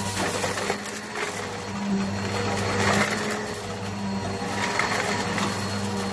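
Eureka PowerSpeed upright vacuum running on carpet, its motor humming steadily as the head is pushed back and forth, with a few swells of gritty hiss as it picks up dirt.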